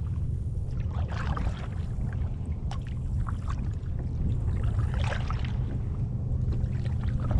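Double-bladed kayak paddle dipping and pulling through the water, a splash and drip about every two seconds as the strokes alternate sides, over a steady low rumble.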